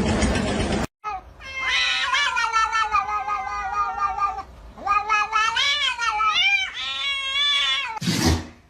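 A cat yowling in long, wavering meows: one drawn-out call, then several shorter calls that rise and fall in pitch. A short, loud noisy burst follows near the end.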